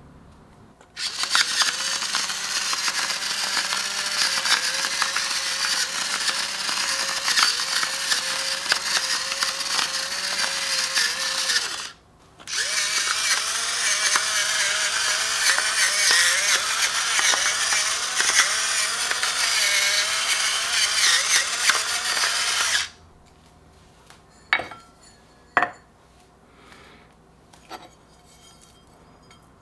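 Electric pepper grinder running, grinding black pepper: a motor whine over a gritty crackle, in two long runs of about ten seconds each with a brief stop between. A few light knocks follow once it stops.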